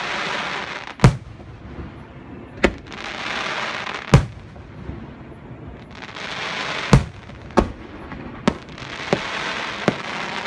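Fireworks going off: about eight sharp bangs, irregularly spaced a second or so apart, with stretches of loud hissing crackle in between.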